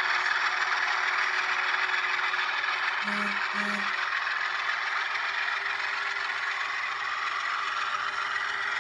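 ScaleTrains model diesel locomotive running on layout track, its onboard sound system playing a steady diesel engine sound over the running noise of the model. Two short low tones sound about three seconds in.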